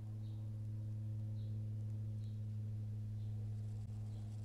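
Steady low electrical hum on the nest camera's audio, unchanging, with faint high bird chirps about once a second over it.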